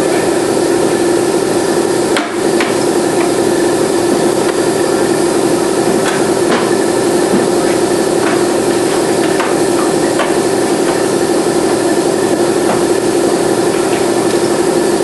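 Scattered, irregular knocks and taps like hammer or tool strikes, over a steady loud hum.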